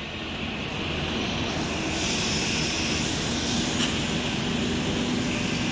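Large intercity coach's diesel engine running as the bus pulls slowly away across the yard, a steady drone. A hiss joins in about two seconds in and carries on over it.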